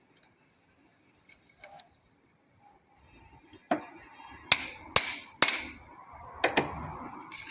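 Metal tools striking and clanking on engine parts: a few faint clinks, then from about halfway about six sharp, ringing knocks, two of them close together near the end.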